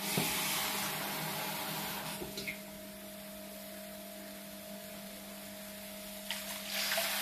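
Garlic sizzling in hot sardine oil in a wok, loudest in the first two seconds. Near the end, water is poured in from a bowl and the hot oil hisses up again briefly.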